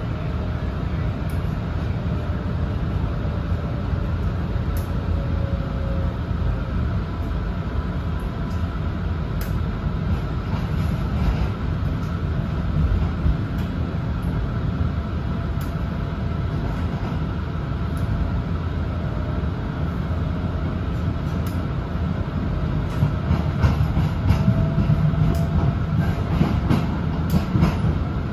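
Inside an MBTA Green Line light rail car running along the track: a steady rumble of wheels on rail with a faint whine that slides in pitch. Sharp clicks grow more frequent and a little louder over the last few seconds.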